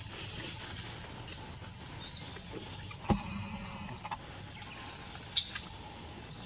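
A bird chirping in a quick string of short, high notes that slide up and down, over a steady high drone of forest ambience. A dull thud comes about three seconds in, and a single sharp snap, the loudest sound, a little after five seconds.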